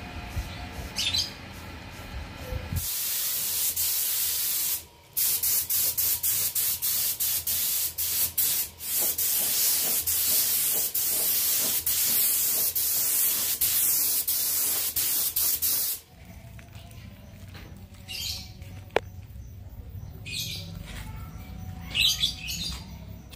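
Paint spray gun hissing loudly and steadily as it sprays red paint, stopping briefly about five seconds in and cutting off sharply later on. Birds chirp a few times in the quieter stretch that follows.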